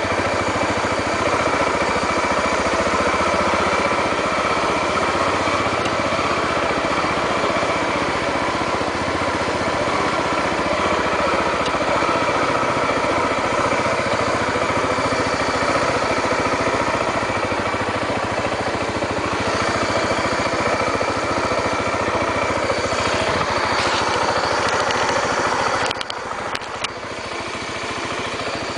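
Honda XR 250 Tornado's single-cylinder four-stroke engine running steadily while the motorcycle is ridden, dropping in level about 26 seconds in as the throttle eases, with a few brief clicks just after.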